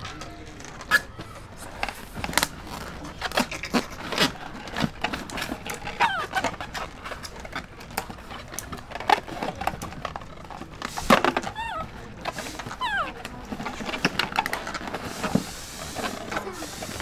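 Irregular taps, knocks and clatter of a plastic laundry basket and rubber water balloons being handled, with a few short squeaky glides around the middle and about three-quarters in.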